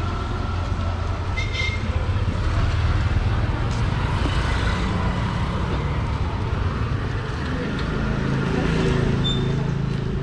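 Town street traffic: motor vehicle engines running and passing, swelling and fading.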